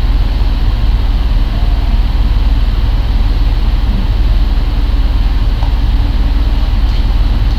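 Steady, loud low hum with an even hiss over it.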